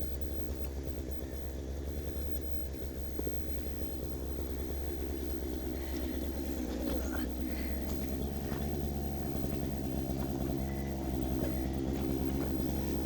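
A small engine running steadily with a low, even hum, and a few faint ticks in the middle.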